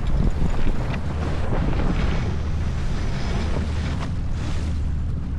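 Wind buffeting the microphone over the rush of water past a J24 sailboat's hull while it sails, with a single sharp click about four seconds in.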